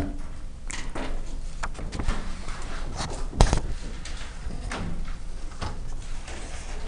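Light handling noises: scattered small clicks, knocks and rustles, with one sharper knock about three and a half seconds in.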